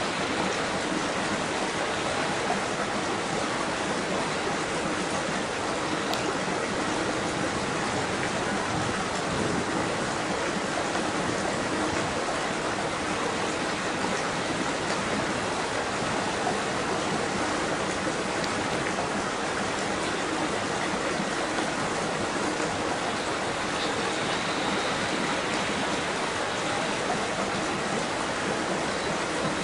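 Flowing water rushing steadily, with no rise and fall.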